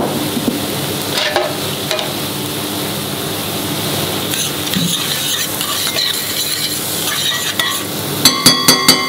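Chopped shallots sizzling steadily in oil and vegan butter in a stainless steel saucepan while a metal spoon stirs them. Near the end the spoon knocks against the pan about five times in quick succession, with ringing metallic clinks.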